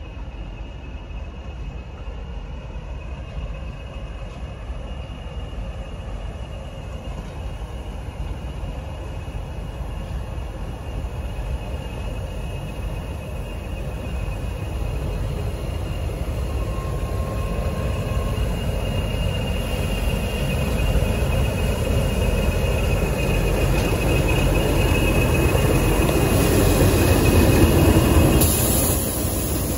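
Diesel locomotive with its train approaching on the rails: a steady engine and rail rumble that grows gradually louder, loudest just before the end.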